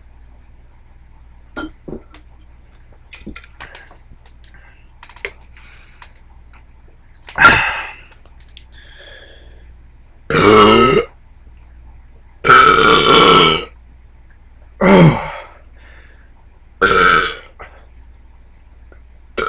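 A man belching loudly five times after chugging a can of carbonated energy soda, each belch short and the middle one the longest at about a second. A few faint clicks come before the first belch.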